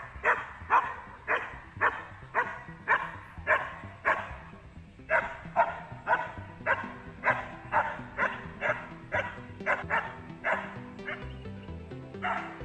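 A young dog barking repeatedly at a protection-training helper, at about two barks a second, with music underneath.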